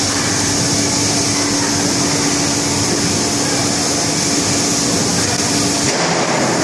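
Semi-automatic box-making production line running: a steady machine hum with a constant tone and a high hiss, which briefly falls away near the end.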